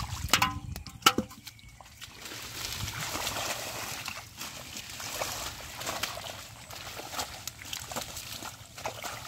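Sloshing and splashing of shallow muddy water as someone wades through it and works with his hands in the mud among water plants. There are a few sharp splashes in the first second or so, then a steady wet sloshing with small splats.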